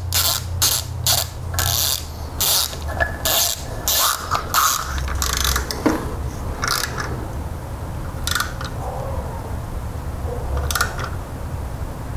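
Socket ratchet clicking as it runs the camshaft sprocket bolt in, in quick back-and-forth strokes for about the first five seconds, then only a few single strokes. The bolt is only given a few turns to hold the sprocket, not torqued down.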